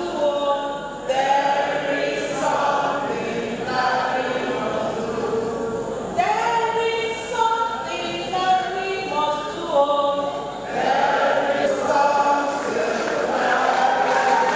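A choir singing, the voices holding long notes together, growing fuller and louder near the end.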